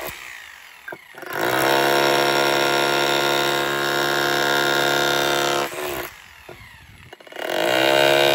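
Dekton 2603B 1050 W rotary hammer in chisel mode, a pointed chisel bit hammering into a concrete slab. The tool winds down at the start, starts again after about a second and runs for about four seconds, stops, then starts once more near the end.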